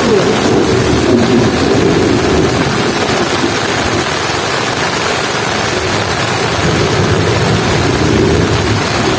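Heavy rain drumming on a tent's fabric, heard from inside the tent as a steady, dense hiss with a low rumble beneath it.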